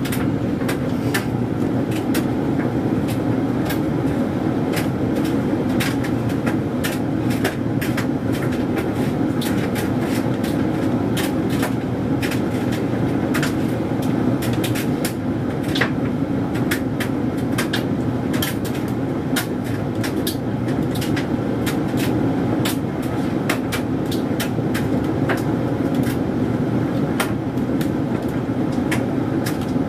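Hoover Dynamic Mega 10kg condenser tumble dryer running on a low-heat synthetics cycle: a steady motor and fan hum with frequent irregular clicks and taps as the drum turns the load.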